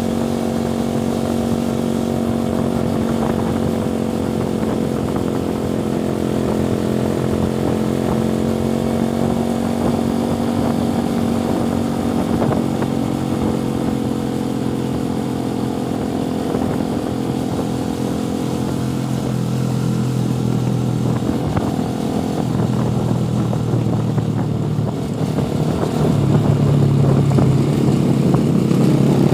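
Motorcycle engine running while riding, its pitch shifting with engine speed. It drops lower and gets louder near the end.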